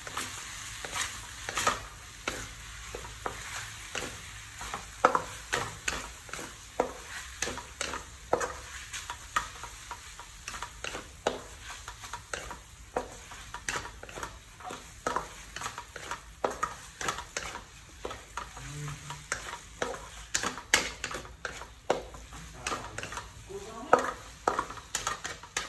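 Wooden spatula scraping and knocking against a metal wok as sauced noodles and leafy greens are stir-fried, over a steady sizzle. The scrapes come irregularly, about one or two a second.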